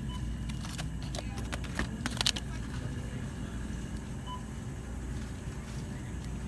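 Steady low hum of store ambience at a freezer case, with a quick run of plastic clicks and rattles about a second or two in as frozen-food packages are handled. A faint short beep sounds twice.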